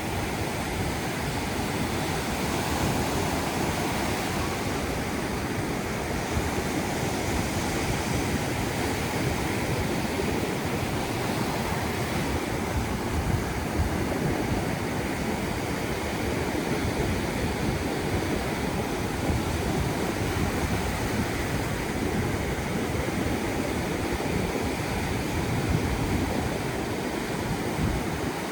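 Atlantic surf washing onto a beach, a steady continuous rush of noise with no let-up.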